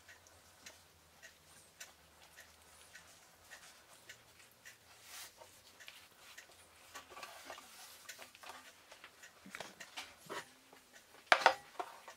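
Faint scattered taps and soft rustles of hands rolling a thin, filled sheet of dough into a rope on a wooden board, with a short, louder clatter near the end.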